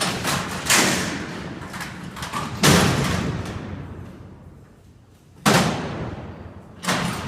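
Alcatraz steel cell doors and their locking mechanism clanging shut, a series of heavy metallic slams about two seconds apart that echo through the large cell house. The loudest comes a little under three seconds in.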